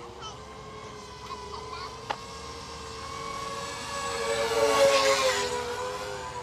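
Eachine Falcon 180 racing quadcopter's brushless motors whining in flight, the pitch wandering slightly. The whine swells louder about four seconds in, then eases off near the end. A single sharp click sounds about two seconds in.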